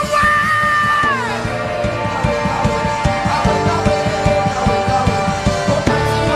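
Worship band music: sustained chords over a steady drum beat, with a high held note in the first second that slides down and fades.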